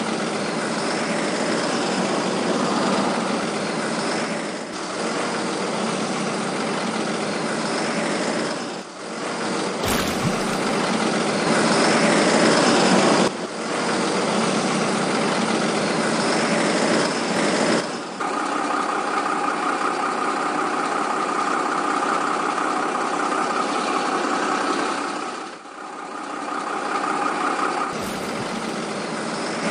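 A truck engine running steadily, changing character abruptly several times, as the engine recording is cut between segments; it is an engine sound laid over footage of unpowered toy trucks.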